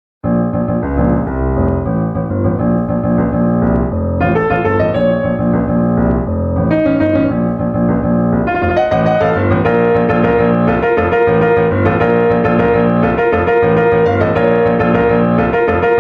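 Background piano music that starts abruptly just after the opening, layered and building, growing fuller about halfway through.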